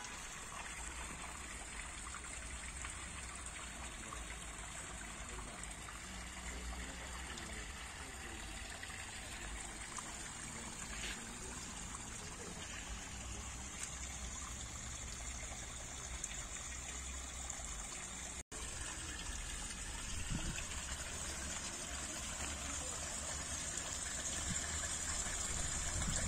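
Water from a stone waterfall spout trickling and splashing steadily into a garden pool.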